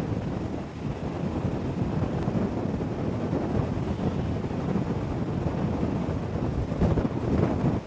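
Wind buffeting the microphone, a steady low rumble with a couple of stronger gusts near the end.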